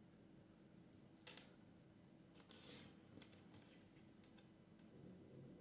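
Faint handling noises of small earrings being set down and picked up from a table: a short click-rustle about a second in, a longer rustle around two and a half seconds, then a few light ticks.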